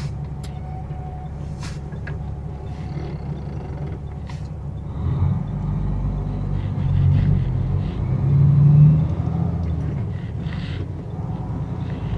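Semi truck's diesel engine running as a low steady rumble. It grows louder about five seconds in and peaks near nine seconds before easing off, with a few faint clicks in the first half.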